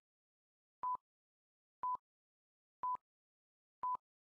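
Countdown timer beeping: a short electronic beep of one steady pitch once a second, with silence between, counting off the seconds left to answer a quiz question.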